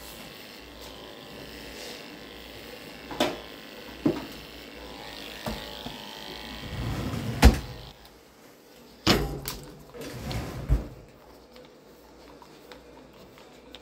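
Cordless electric animal clippers running as they shave a dog's belly for spay surgery prep, stopping about eight seconds in. Several sharp knocks from handling the clippers and table, the loudest just before they stop.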